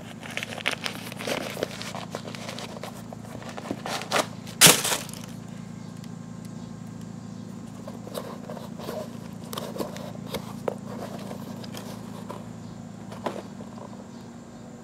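Tissue paper rustling and crackling as a new pair of soccer cleats is handled and its paper stuffing pulled out, with scattered small knocks and scrapes of the shoes. The loudest is a sharp crackle about four and a half seconds in. A steady low hum runs underneath.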